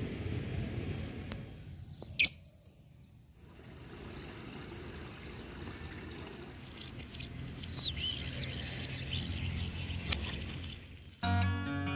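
Outdoor ambience with birds chirping, broken by one sharp click about two seconds in. Strummed acoustic guitar music starts near the end.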